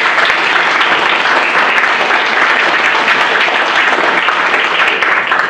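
Audience applauding: dense, steady clapping from a roomful of people that dies away at the very end.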